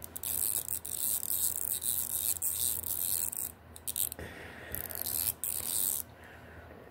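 Micro 1/4-inch drive 72-tooth flex-head ratchet being worked back and forth, a fast, fine, dry clicking in two spells, the second starting about four seconds in. The owner takes its dry sound as a sign that the mechanism could use some oil.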